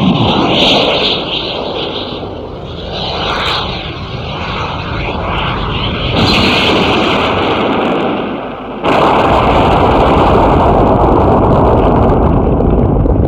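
Aircraft-like flying sound effect: a dense jet rumble with a thin steady whine held through it. It starts suddenly and changes abruptly about six and nine seconds in, loudest in the last part.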